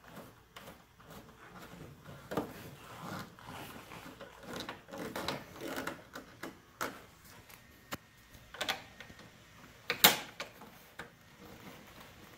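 Scattered small clicks and light scrapes of a screw being turned in by hand with a small Torx driver bit and key against the motorcycle's plastic body panel. A sharp click about ten seconds in is the loudest.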